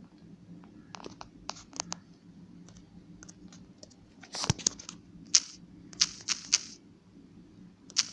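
A phone being tapped and handled while text is typed on its touchscreen. Sparse short clicks come first, then louder scratchy taps and rubs in clusters from about halfway on, over a faint low hum.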